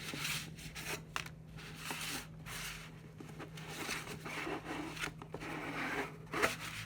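Paper and cardboard packaging being opened by hand: uneven rubbing and rustling, with a sharp tap or click near the end.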